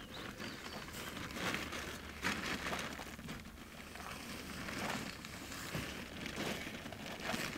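Plastic sheeting rustling and crinkling in irregular bursts as a heavy plastic-wrapped bundle is hauled out of an SUV's cargo area and dragged onto gravelly ground, with scuffs and shuffling steps.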